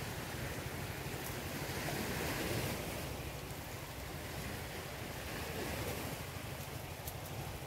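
Steady rushing noise of wind buffeting the microphone, swelling briefly a couple of seconds in, with a few faint clicks near the end.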